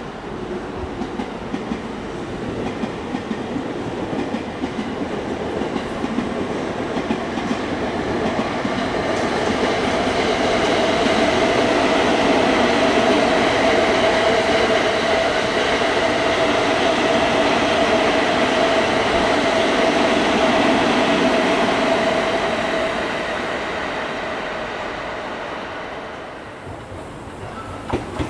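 Electric train passing: its running noise builds up, stays loud for about twelve seconds with a steady whine over the rumble, then fades away near the end.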